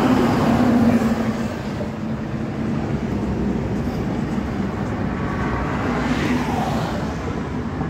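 Steady motor-vehicle noise: an engine running close by, with highway traffic behind it.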